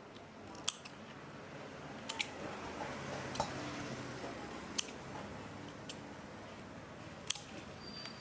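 About six sharp clicks at irregular intervals, a second or more apart, over a steady hiss: kitchen handling sounds while raw shrimp and salad ingredients are prepared.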